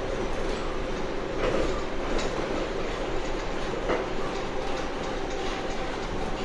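Cabin noise of a rubber-tyred KL Monorail train in motion: a steady running drone with a motor hum, and a few short knocks along the way.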